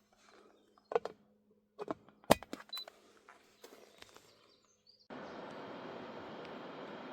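Several sharp clicks and knocks of objects being handled, then a steady hiss that cuts in suddenly about five seconds in.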